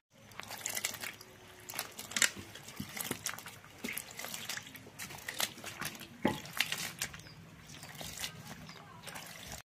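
Hand swishing and rubbing sliced mushrooms in water in an aluminium pot, with irregular splashes and sloshing.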